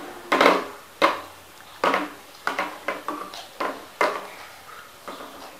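Plastic toy kitchen pieces clicking and knocking together as they are handled: about ten irregular, sharp knocks, the loudest near the start.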